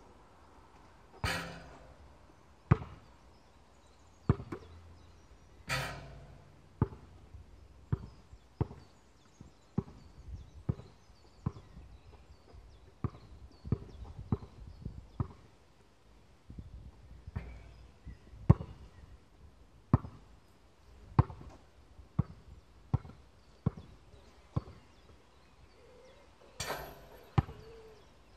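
Basketball bouncing on an outdoor hard court: single sharp thuds at an uneven pace, about one a second. Two louder, ringing hits come about a second in and again about six seconds in, the first just after a shot, as the ball strikes the hoop.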